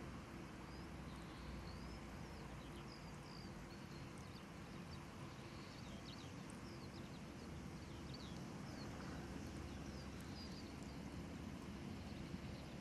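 Small birds chirping in scattered short, high notes over a steady low outdoor rumble.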